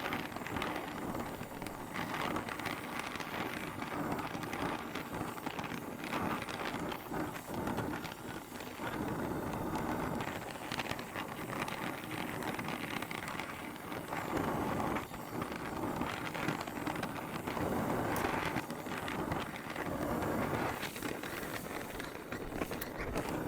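Gas torch flame running steadily, heating the joint between a rifle bolt handle and bolt body until the silver solder melts and flows.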